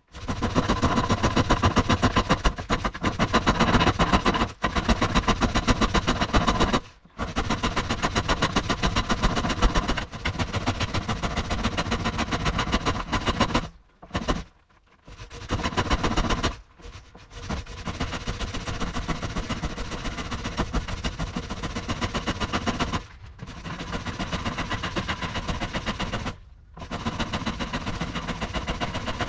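Pole lathe turning played back at four times speed: the gouge cutting into the spinning wooden blank as the pole and treadle drive it back and forth, giving a rapid, continuous clatter. It breaks off briefly a few times.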